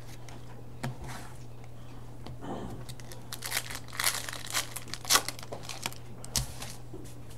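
Hockey-card pack wrapper being torn open and crinkled by hand: a cluster of sharp crackles in the middle, loudest about five seconds in.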